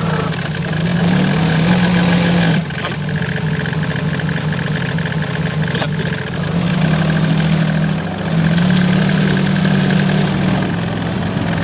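Solis 26 compact tractor's diesel engine running as the tractor is driven along, its note dropping a couple of seconds in and rising again twice later on.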